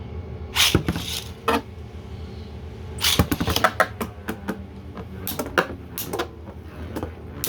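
Spinning Beyblade tops, a 3D-printed top against a Knockout Odax combo, clashing in a stadium. Bursts of sharp clacks from the hits come about a second in, again around three seconds in, and again near the end, over a steady whir of the spinning tops. The hits are knocking small chips off the printed top.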